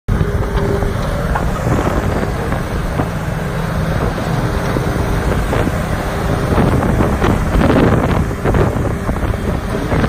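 New Holland skid steer loader's diesel engine running steadily as the machine drives and turns on gravel, briefly louder about seven to eight seconds in.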